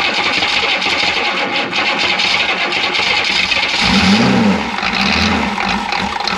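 Chevy G20 van's 6.2-litre V8 diesel starting and running with a loud, rough clatter. About four seconds in, the engine speed surges up and down twice. The owner reports a miss, which he suspects is a timing or injection pump problem that leaves one injector short of fuel.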